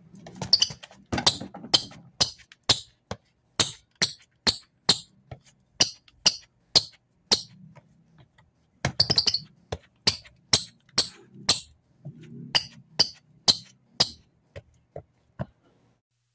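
Rubber outsoles of Peak Sonic Boom 2.0 basketball shoes squeaking and scuffing on a hard floor in quick, sharp chirps, about two a second, with a short pause midway. This is a squeak test of the outsole's grip, which the tester rates as minimal squeak.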